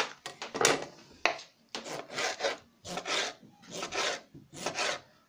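Large kitchen knife slicing through a tomato onto a plastic cutting board: a run of short cutting strokes, about two a second.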